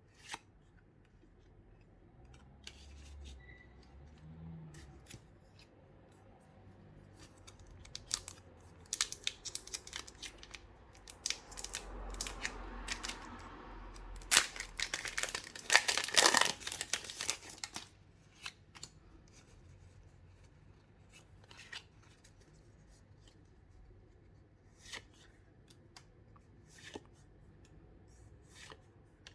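Pokémon card box packaging and booster packs being opened by hand: plastic wrap and foil packs cut and torn open, crinkling and rustling, with scattered small clicks from handling cardboard and cards. The handling is busiest in the middle, with the loudest tearing and crinkling a little past halfway, then it falls back to occasional clicks.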